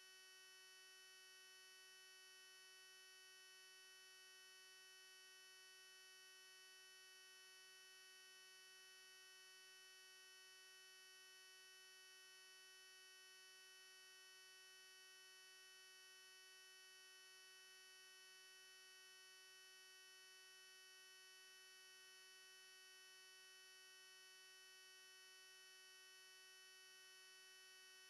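Near silence: only a faint, steady electrical hum made of several constant tones, with no change throughout.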